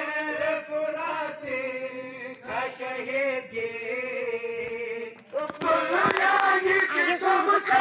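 Men chanting together. The first five seconds or so are a thinner held line, and then a louder chorus of many voices comes in.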